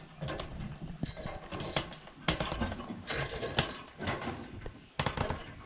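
Aluminium extension ladder knocking and rattling as someone climbs it, an irregular clank with each step on the rungs.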